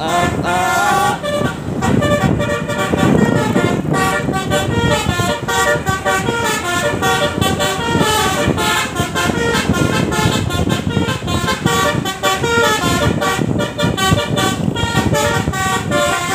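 Basuri telolet horn on a bus playing a rapid tune of changing notes without a break, over a low rumble.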